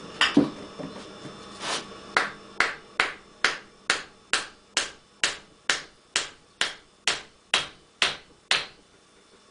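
A hammer tapping the end of a wooden drift, about two blows a second after a couple of quick knocks at the start, driving a new oil seal into the crankcase of an S&S V-twin engine around the crankshaft.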